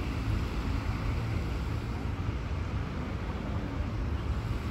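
Steady low rumbling background noise with a faint hiss above it, no distinct events.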